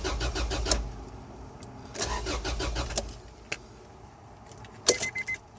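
Starter motor cranking an Acura Integra's 1.8-litre four-cylinder engine, which turns over in quick even strokes but never fires: a crank-no-start caused by a faulty immobilizer key reader. Near the end a quick electronic beeping starts.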